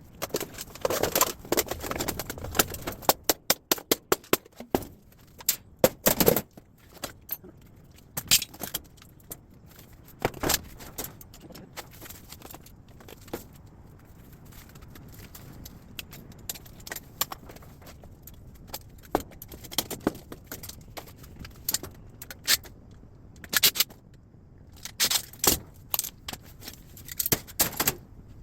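Metal parts and hand tools clinking, scraping and clattering in irregular bursts as a scrap appliance is taken apart by hand, with a quieter stretch of lighter handling in the middle.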